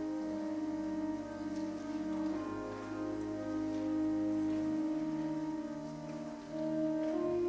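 Organ music playing slow, held chords, moving to a new chord about five seconds in and again near the end.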